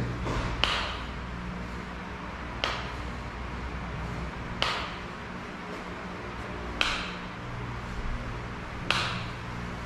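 A person's short, sharp exhalations, five of them about two seconds apart, keeping time with dumbbell repetitions. A steady low hum runs underneath.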